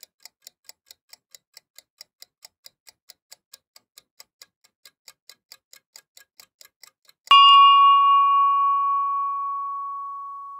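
A clock ticking with light, even ticks about three a second, then about seven seconds in a single bell ding that rings on and slowly fades.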